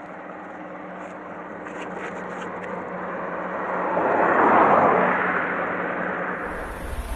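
A vehicle passing on the road: engine and tyre noise swells to a peak about four to five seconds in and dies away, over a steady low engine hum.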